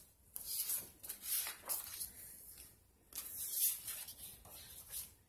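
Sheets of paper and cardstock rustling and sliding against each other as they are leafed through by hand: a string of short rustles with a brief lull about halfway.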